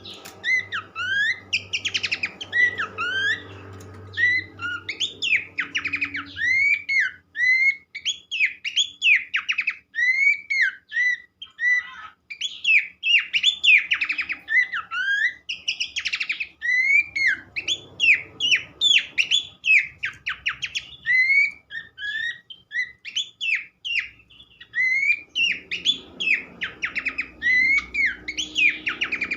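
Pelanduk semak (Horsfield's babbler) song played as bait sound: a fast, dense run of short whistled notes that hook up and down in pitch, with a brief break about twelve seconds in.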